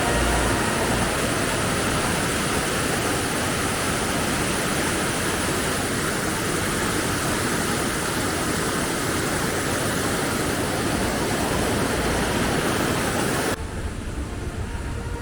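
Steady rush of falling water, loud and even. It cuts off abruptly about 13.5 seconds in, giving way to a much quieter background.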